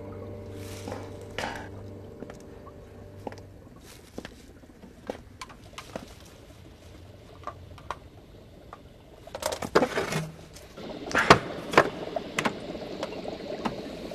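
A low held music chord fades out, then scattered light clinks and taps of glassware and bottles follow. These grow busier and louder about ten seconds in.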